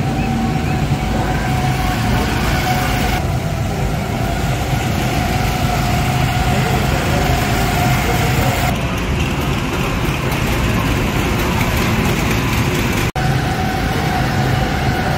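Several go-karts' small four-stroke Honda engines running steadily as the karts drive past, with a constant droning hum and a steady higher whine. The sound shifts slightly twice and cuts out for an instant near the end.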